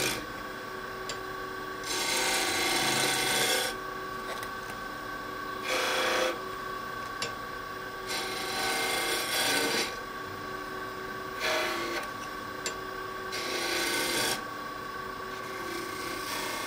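Wood lathe running with a steady motor hum while a spindle tenon is sized: about five short rasping passes as the tool and the sizing jig rub against the spinning wood.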